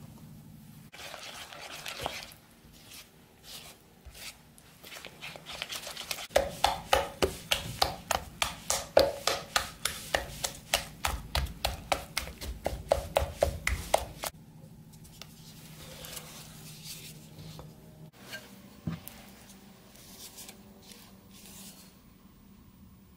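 Silicone spatula stirring flour into a wet batter in an earthenware bowl: softer scraping at first, then about eight seconds of quick, even strokes, about three a second, before it goes quieter again.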